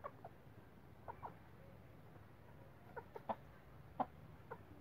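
Domestic hens clucking in short, scattered calls, about ten in all, the loudest coming about three and four seconds in.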